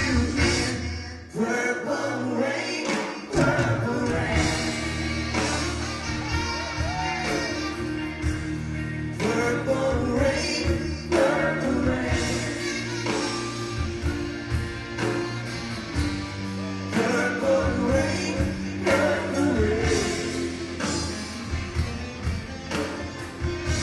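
Live rock band playing a slow ballad, a man singing lead over electric guitar, bass and drums. The bass and drums drop out about a second in and come back at about three seconds.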